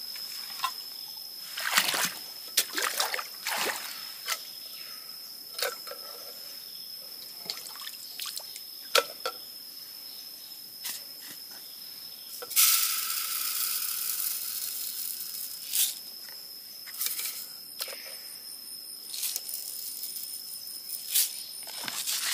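Water pouring for about three seconds past the middle, among scattered clicks and knocks, over a steady high whine.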